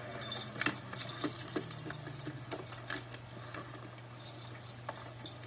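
Scattered light clicks and taps, irregular and several a second early on, thinning out later, over a steady low hum: a puppy moving and scrabbling about next to a vacuum cleaner that has just been switched off.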